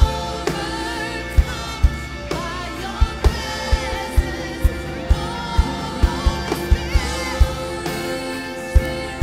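Live church worship band playing a song with a lead singer over electric guitars and keyboard, a kick drum thumping steadily about twice a second.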